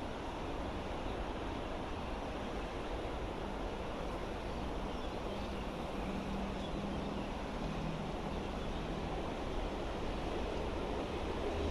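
Steady rushing background noise at an even level, with a faint low hum in the middle of it.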